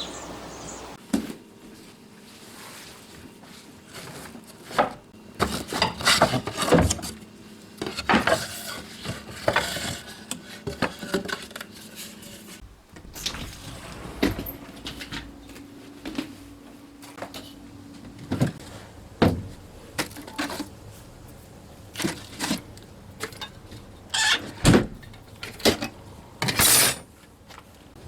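Dishes and utensils being handled: scattered clinks and knocks at irregular intervals, with a few brief rustling or scraping sounds between them.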